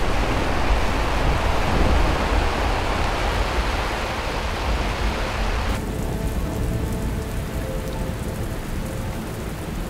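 Heavy rain falling steadily, with a low rumble underneath. About six seconds in the rain turns duller and a little quieter as faint held tones come in.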